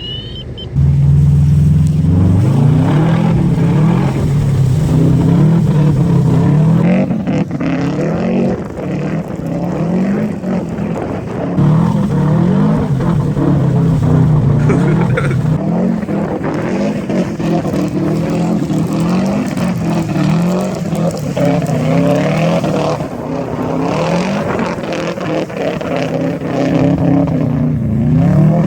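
Subaru flat-four engine catching and starting about a second in, just after it had stalled, then revving up and down over and over as the car is driven.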